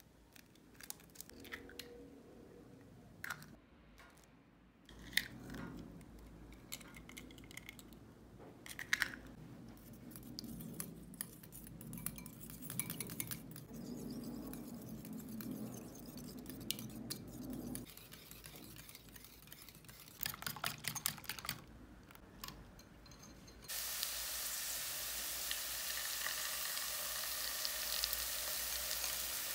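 Eggs cracked against a bowl, then beaten with a wire whisk clinking and scraping in the bowl. For the last several seconds, shredded potato frying in oil in a pan, a steady sizzle.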